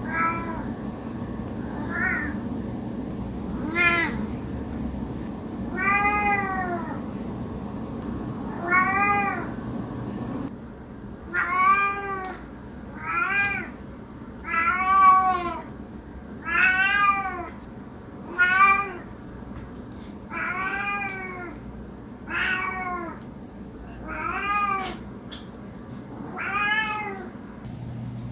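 A domestic cat meowing over and over, about fifteen drawn-out meows each a second or two apart, each one rising and then falling in pitch.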